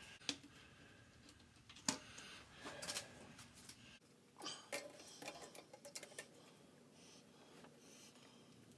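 Faint scattered clicks and light rustling of a head gasket being handled and laid onto a Cat 60 tractor's cast-iron cylinder over its locating studs.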